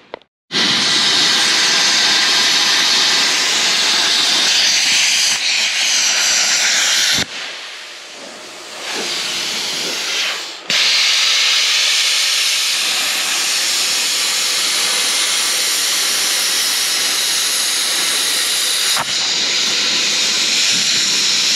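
Handheld plasma cutter cutting through steel: a loud steady hiss of air and arc. It drops away about seven seconds in and starts again about three and a half seconds later.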